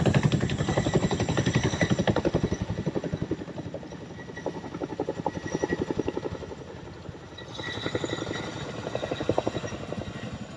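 Helicopter flying past with the rapid, even chop of its rotor blades. It is loud at first, fades somewhat in the middle and grows louder again near the end.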